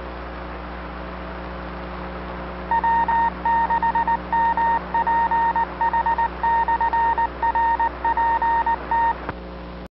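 A Morse code tone of about 1 kHz, keyed in long and short elements, begins a few seconds in and stops shortly before the end, typical of an amateur radio station's automatic CW identification. Under it runs a steady hum and hiss from the radio channel.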